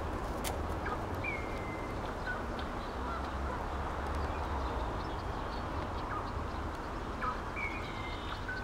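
Outdoor park ambience: a steady background hiss and low rumble, with a few short bird chirps scattered through it.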